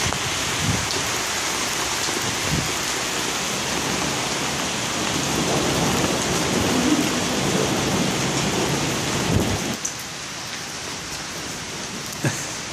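Hailstorm: hailstones falling and hitting roofs and ground, a dense steady hiss and patter that drops off sharply about ten seconds in.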